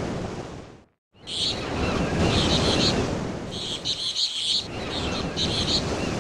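Birds chirping in short repeated bursts over a steady rushing wash of outdoor noise. The sound cuts out completely for a moment about a second in.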